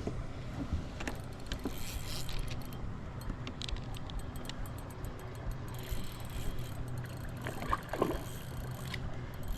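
Small clicks and knocks of fishing gear and tackle being handled in a kayak, scattered through a steady low rumble.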